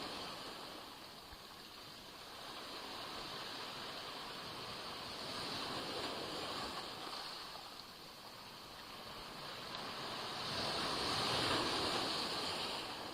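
Black Sea waves splashing and breaking on the shore, the surf swelling and ebbing in slow surges, with the biggest wash coming in near the end.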